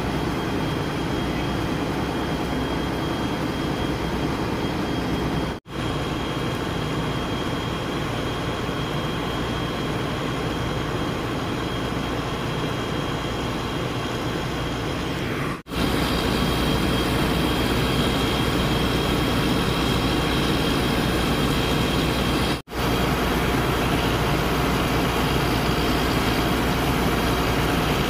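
Steady rumble of idling vehicle engines with a thin, faint high whine. The sound drops out briefly three times and is a little louder after the second gap.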